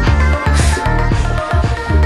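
Instrumental electronic house track with a funk groove: a steady beat and deep bass under sustained keyboard chords, with a hissy swell about half a second in.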